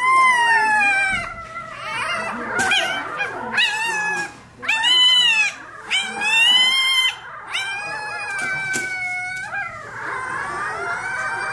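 A very young Rottweiler puppy crying as its tail is docked. It gives a string of loud, high-pitched cries, most of them falling in pitch, then settles into steadier, quieter crying near the end.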